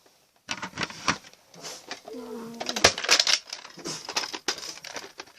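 Handling noise from a plastic Nerf blaster being picked up and shown: an irregular run of clicks and rattles. About two seconds in there is a brief hummed "hmm".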